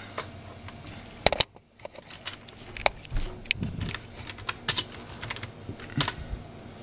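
Computer keyboard keys clicking in scattered, irregular presses, with a sharp double click a little over a second in, as terminal commands are typed.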